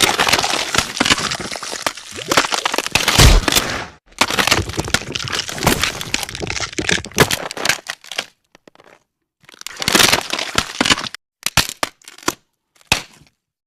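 Gore sound effects of bones breaking: two long runs of rapid cracking and crunching, then, after a short gap, shorter scattered bursts of cracks.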